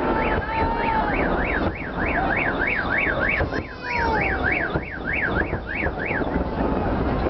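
An electronic alarm siren warbles up and down about three times a second and stops about a second before the end. Under it runs the rumble of fireworks salute bursts with crowd noise.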